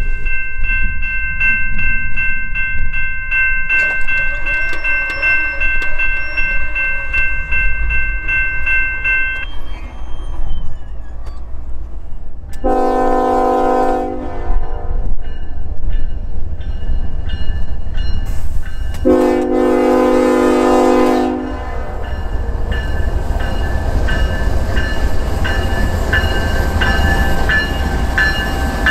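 Norfolk Southern freight train's diesel locomotive horn sounding two blasts, the second longer, then the lead locomotives rumbling past close by while a grade-crossing bell rings in a steady rhythm. It opens with several seconds of a steady high ringing tone.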